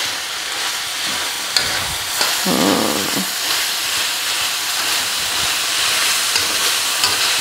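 Minced meat with onion and spring onion sizzling in a wok over a gas flame as it is stir-fried, steady frying hiss with a few clicks and scrapes of the spatula against the wok.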